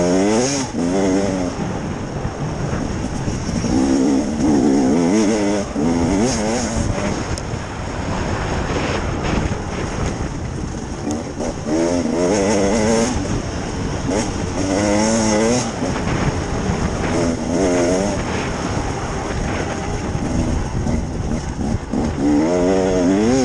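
KTM EXC 300 two-stroke enduro motorcycle engine revving hard again and again as the bike accelerates, the pitch climbing in repeated sweeps between throttle chops and gear changes.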